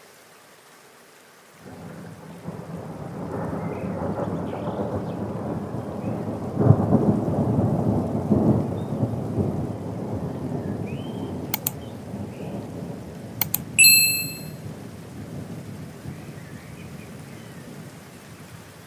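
Rolling thunder over steady rain: a low rumble comes in about two seconds in, builds for several seconds and slowly dies away under the rain. Partway through there are a couple of sharp clicks and a short bright ding.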